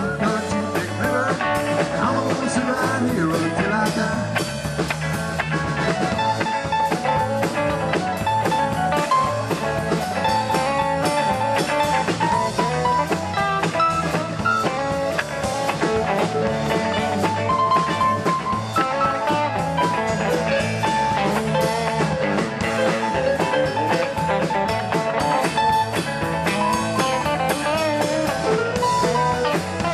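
Live rock band playing steadily: electric guitars, keyboard and a drum kit, with no sung words picked up.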